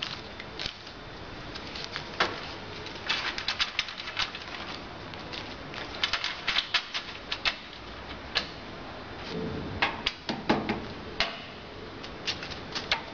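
Business card cutting machine running, with clustered runs of quick sharp clicks and paper flapping as cut cards come out. Cards are handled and squared into a stack alongside.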